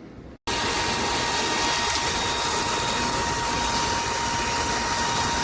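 EUREKA RapidClean Pro cordless stick vacuum running: a steady motor whine over loud rushing airflow. It starts abruptly about half a second in.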